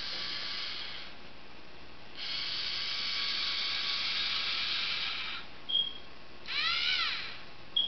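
Lego Mindstorms NXT servo motors whirring through their plastic gears as they drive the robot along a horizontal bar, in two runs about a second apart. Near the end come two short high tones, with a brief whir between them that rises and falls in pitch.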